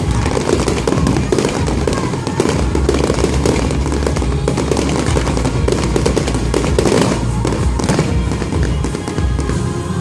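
Fireworks display with many rapid crackles and bangs in quick succession, over music playing throughout.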